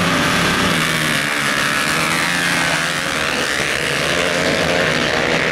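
A pack of dirt track racing motorcycles running hard, several engines at high revs together, with the pitch dipping and climbing again about two seconds in.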